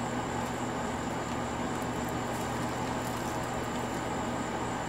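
Steady background noise: a low hum with hiss and a thin, steady high-pitched tone, and a few faint ticks about two to three seconds in.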